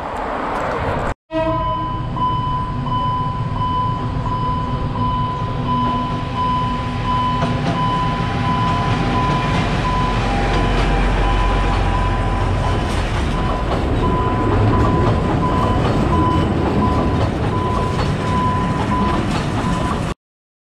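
Alishan Forest Railway diesel locomotive and its carriages passing over a street level crossing, the engine rumble loudest about halfway through. The crossing's warning signal sounds a repeating high tone throughout.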